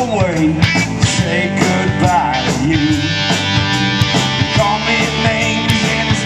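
Live country-rock band playing, with a steady drum beat under sliding melodic lines.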